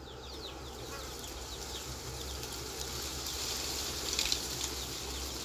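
Batter-coated cauliflower pieces deep-frying in hot oil: a steady sizzle and crackle of bubbling oil, growing a little louder as more pieces go in.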